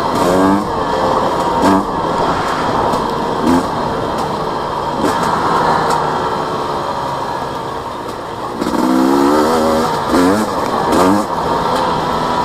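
Husqvarna TE250i two-stroke enduro motorcycle engine revving as it is ridden, climbing in pitch in several short bursts with a longer climb about nine seconds in, over a steady rush of noise.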